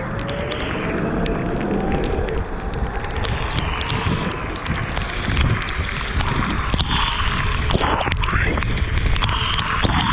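Weped Fold electric scooter's dual hub motors whining, the whine rising in pitch over the first few seconds as it speeds up, under steady wind noise and tyre hiss on a wet road. Scattered sharp ticks run through it.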